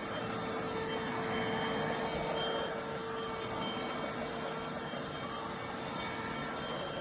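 iwoly C150 cordless stick vacuum running steadily: a constant motor whine over the rush of air through the cleaner.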